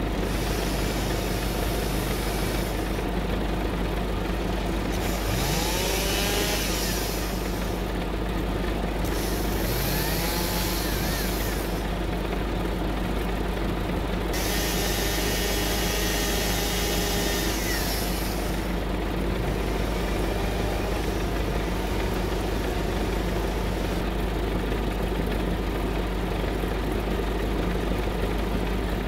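Chainsaw revving in several bursts as it cuts, the longest a steady run of about four seconds past the middle, over the steady idle of a Massey Ferguson 3070 tractor's diesel engine.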